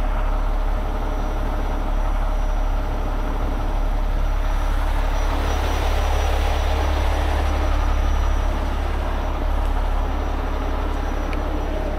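Heavy diesel truck engine running steadily, a low rumble that swells slightly around the middle.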